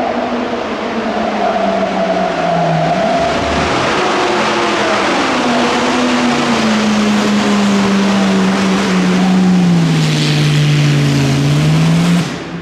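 Auto Union Type C's 6-litre V-16 racing engine running under way, its note dipping and climbing several times as the revs change. The engine sound grows gradually louder, then cuts off abruptly near the end.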